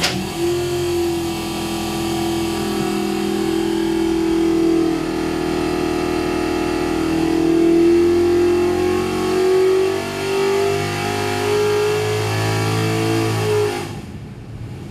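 A 540-cubic-inch big-block Chevrolet V8 with CID heads and a solid flat-tappet cam runs under load on an engine dynamometer. Its note holds steady for about five seconds, then climbs gradually in pitch through a power pull to over 6000 rpm, and cuts off sharply about a second before the end.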